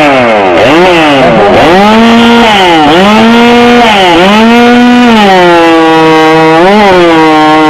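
Two-stroke chainsaw at full throttle cutting through a log. The engine pitch dips and rises again and again as the chain bites and frees, with quick revs in the first second or so.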